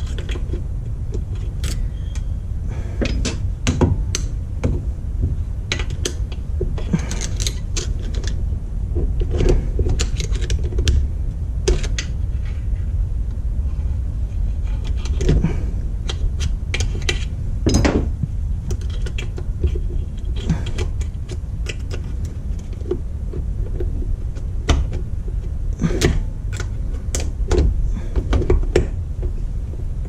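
Scattered metal clinks and clicks of hand tools against the parts of a Honda Civic manual transmission's shift rods and case during reassembly, irregular and quick, over a steady low hum.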